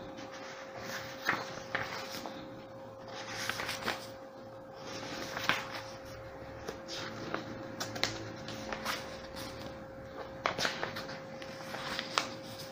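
Quiet room sound: a steady high-pitched hum, with scattered light clicks and knocks.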